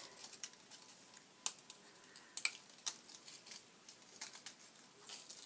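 Scattered small clicks and taps of a metal paper brad being pushed through card and its prongs handled, with the loudest clicks about a second and a half and two and a half seconds in.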